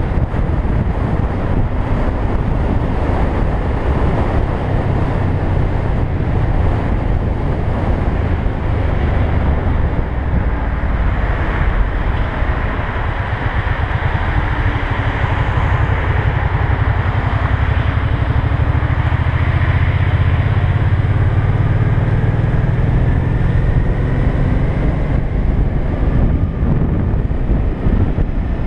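Wind buffeting the microphone of a camera on a moving motorcycle, with the motorcycle's engine and road noise running underneath; the low rumble grows heavier past the middle as the bike speeds up.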